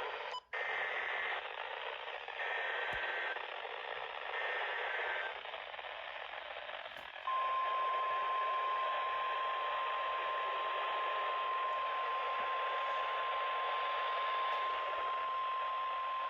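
NOAA Weather Radio alert heard through radio static. Three short bursts of the EAS SAME data header's warbling digital tones come first. A few seconds later the steady 1050 Hz warning alarm tone starts and holds for about nine seconds, marking a warning-level alert, here a severe thunderstorm warning.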